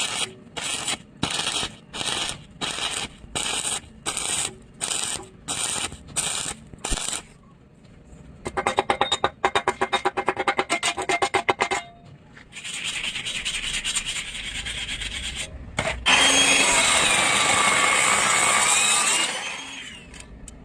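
A run of metalworking sounds on an iron pipe: regular scraping strokes about two or three a second, then a rapid ticking, then a steady hiss, and about two-thirds of the way in a louder steady rush with a wavering whine that stops near the end.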